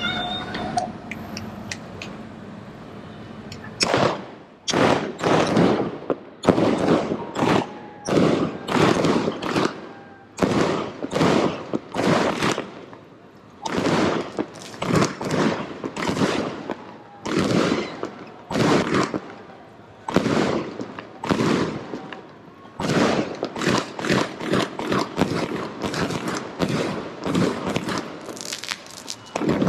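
Multi-shot firework cake (a 64-shot 'Soldier' repeater) firing, its shots going off one after another at roughly one to two a second from about four seconds in, each a sharp bang with a short ringing tail.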